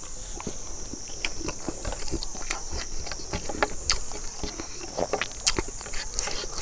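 A person eating rice and roasted chicken with his fingers: chewing with many irregular small wet clicks and taps of fingers scooping in the pan. A steady high-pitched hiss runs behind.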